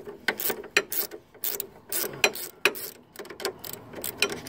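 16 mm ratcheting spanner clicking over its pawl as it is swung back and forth, unscrewing the nut of a stabiliser-bar drop link. The quick clicks come about four or five a second, often in pairs.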